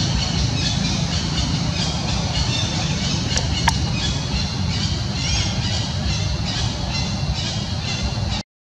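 Outdoor ambience: a steady low rumble under a constant texture of many short high chirps. A brief sharp squeak comes about three and a half seconds in, and the sound cuts off suddenly near the end.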